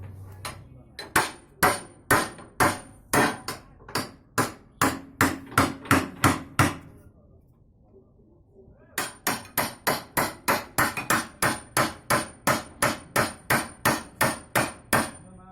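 Repeated hammer blows in two runs of even, rapid strikes, about two to three a second, with a pause of about two seconds between them. The second run is faster.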